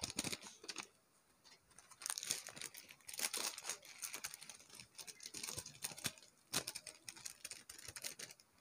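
Plastic packaging crinkling and rustling in irregular bursts, with small clicks and taps, quietest about a second in.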